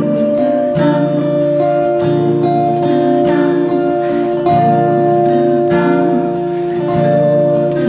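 Slow live band music: an electric guitar strums a chord about once a second over long held steady tones, with no sung words.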